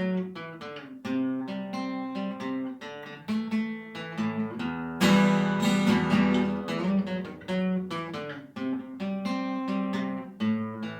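Acoustic guitar playing an instrumental passage of picked and strummed chords, with a loud full strum about five seconds in.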